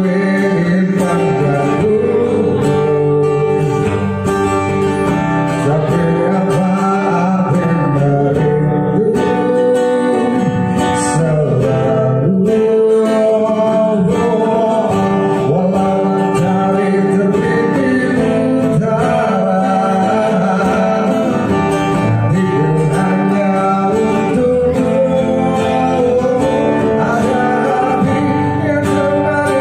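A man singing a song into a microphone, accompanied by an acoustic guitar.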